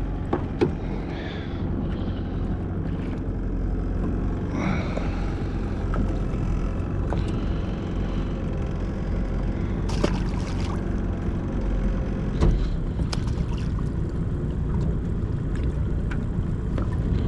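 Boat engine running steadily at low revs, with a few short knocks and clicks over it.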